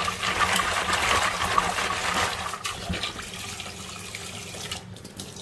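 Tap water running into a stainless steel pot of dried shiitake mushrooms while a hand swishes them through the water to wash them. The splashing is louder for the first two and a half seconds, then settles to a softer steady pour.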